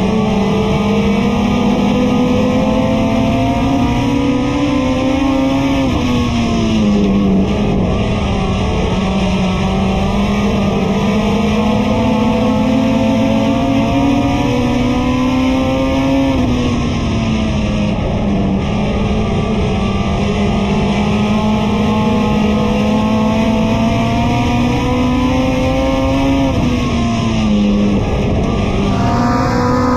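Front-wheel-drive compact race car's engine heard from inside the cockpit, climbing in revs along each straight and dropping off into the turns, a lap roughly every ten seconds. Guitar music plays underneath.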